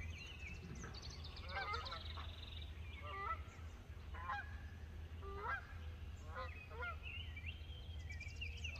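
A flock of geese honking repeatedly in flight, calls coming about once a second, some overlapping.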